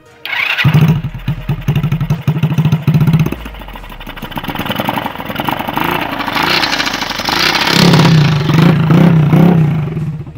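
Rusi Korak motorcycle engine running through a newly fitted Exos R5 aftermarket exhaust with the back of the pipe held closed, a test for an exhaust leak at the freshly tightened joint; no leak is found. The exhaust pulses come in about half a second in, and the engine is blipped up and down several times, loudest near the end.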